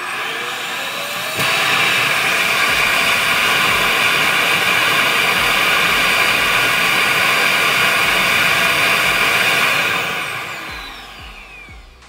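Neabot self-emptying base's suction motor running to pull the dirt out of the docked robot vacuum's dustbin. It is a little loud: a rushing roar with a whine that spins up, jumps louder about a second and a half in, holds steady, then winds down with a falling whine over the last two seconds.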